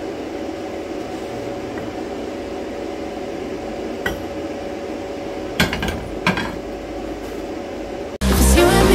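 Welded steel tube manifold clinking against a steel welding plate a few times as it is handled and set down, over a steady hum. Loud music cuts in near the end.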